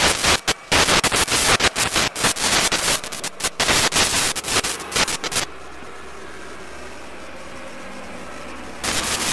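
Loud crackling static from radio or electrical interference, in rapid irregular bursts. About five and a half seconds in it drops to a quieter steady hiss with a low hum, and the loud crackling comes back near the end.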